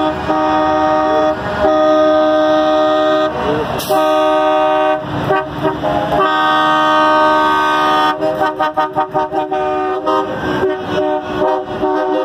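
Semi-truck air horns blasting: several long multi-tone blasts, then a run of short, quick toots over the last few seconds.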